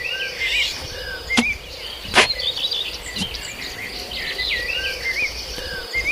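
Small birds chirping and twittering throughout, over a faint steady insect drone, with two sharp knocks, the louder just past two seconds in.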